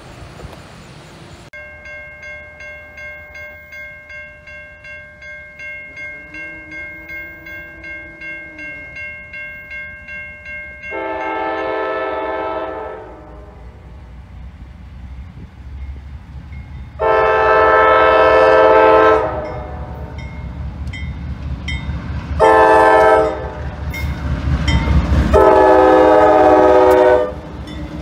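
A grade-crossing warning bell starts ringing about two strokes a second, then a GE B36-7 diesel locomotive's air horn blows the crossing signal: long, long, short, long. Under the horn, the locomotive's diesel engine rumbles louder as it nears the crossing.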